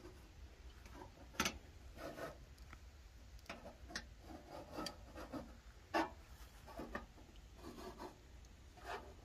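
Flat steel kebab skewers being turned on the metal rim of a charcoal grill: soft scraping and rubbing with scattered sharp metal clicks, the loudest about a second and a half in and about six seconds in.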